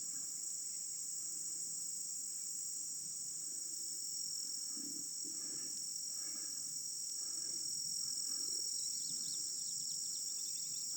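Steady, continuous high-pitched chorus of field crickets and other insects droning without a break.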